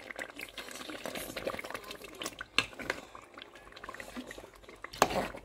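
Tomato stew bubbling in a pot while a spoon stirs it, with frequent small clicks of the spoon against the pot and one louder knock near the end.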